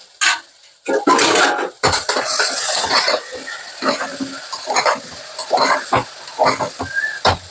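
Metal spoon knocking and scraping against a frying pan as the food in it is stirred, with a noisy sizzling hiss underneath; the clatter is heaviest about a second in.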